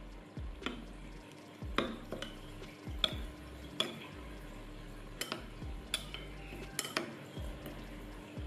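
Metal spoon stirring a green onion, ginger and soy-oil sauce in a ceramic bowl, clinking against the bowl's sides about once a second amid a wet swishing.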